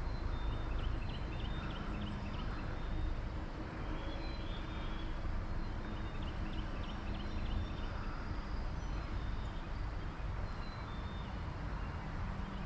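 Steady rush of creek water, with a small bird singing short, repeated chirping phrases every few seconds.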